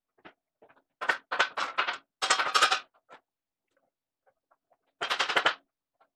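Rapid rattling clatter as the steel wagon-tongue frame and heavy oak tongue are shifted and fitted together, in three bursts: two close together near the start and a shorter one about five seconds in.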